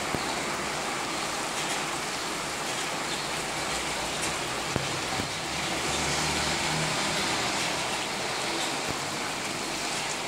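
Steady rain and wind over a wet street, with cars going by on the wet road as a low, shifting rumble.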